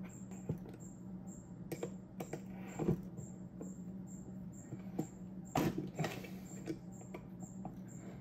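Light clicks and taps of small metal parts being fitted by hand into a J-type overdrive housing, with a louder knock about three seconds in and a cluster of knocks near six seconds, over a steady low hum.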